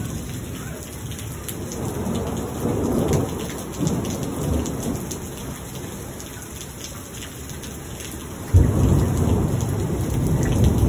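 Thunder rumbling over steady rain, with a fine ticking of drops. The rumble swells about two to four seconds in, and a loud thunderclap breaks in suddenly about eight and a half seconds in and rolls on.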